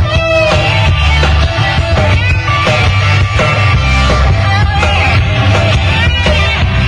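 Live rock band playing an instrumental passage: drums, bass and keyboards with a wavering lead melody over a heavy, steady bass.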